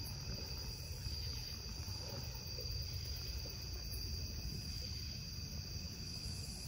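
Night insects trilling steadily in a continuous chorus of high, unchanging tones, over a low rumble.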